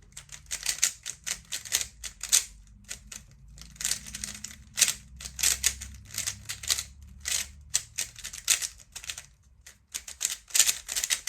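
A 3x3 speedcube being turned fast, its plastic layers clicking in quick irregular runs of several clicks a second.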